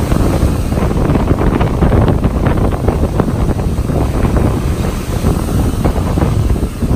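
Storm surf breaking and washing up a sandy beach in heavy, continuous crashing and fizzing foam. Strong wind buffets the microphone throughout.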